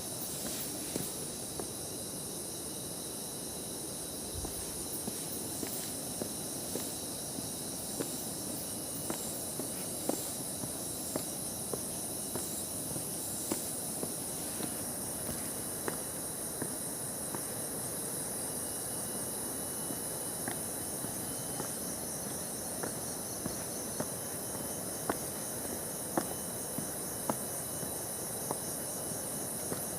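A steady, high-pitched chorus of forest insects, with footsteps on a trail landing about once a second.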